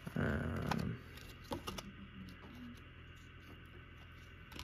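A stack of trading cards handled and set down on a wooden table: a brief rustle ending in a sharp tap about a second in, then a few faint ticks of handling.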